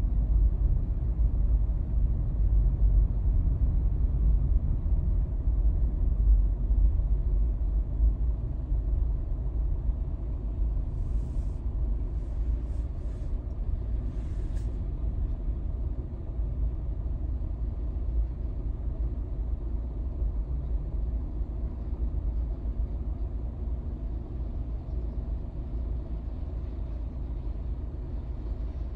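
Low rumble of a jet airliner's engines as it rolls away down the runway, fading slowly. A few brief soft rustles come around the middle.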